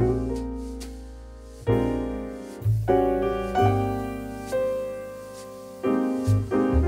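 Background piano music: chords struck every second or so over a low bass note, each left to ring and fade.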